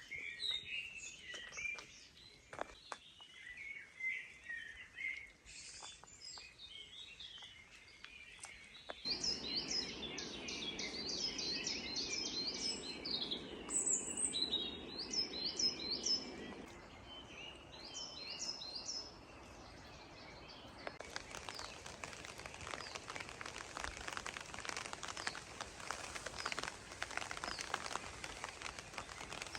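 Songbirds chirping and trilling in quick repeated phrases. From about 9 to 16 seconds a low rushing noise runs under them. From about 21 seconds steady rain patter takes over.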